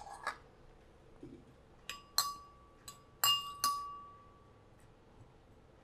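A metal spoon clinking against a ceramic bowl several times while stirring, the louder clinks ringing briefly.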